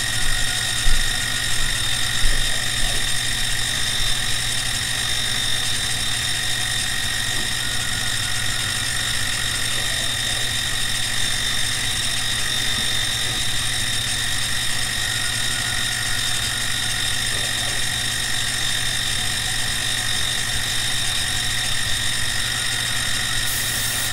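CNC-converted benchtop milling machine running on its final pass, its end mill cutting aluminum with a steady whine over the motor hum. There are a few brief knocks about one and two seconds in.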